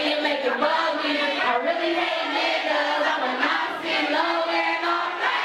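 A female performer singing a melody into a handheld microphone over a club PA, with the crowd singing along with her.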